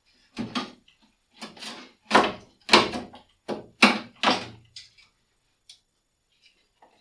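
A run of about seven loud bangs and clanks over four seconds, the sound of a Land Cruiser's sheet-metal front fender being knocked and worked loose from the body.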